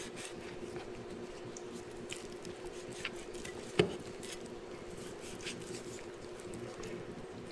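Soft scraping, squishing and small ticks of a knife working through salted fish flesh on a wooden chopping board, with one sharp tap a little before the middle, over a steady low hum.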